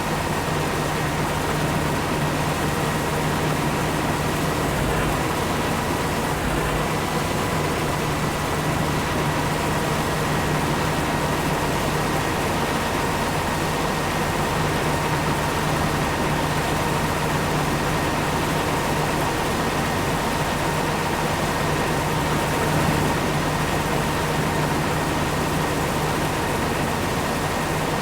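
Corn-harvesting farm machinery running steadily: a constant engine drone and rushing noise with a steady high whine over it.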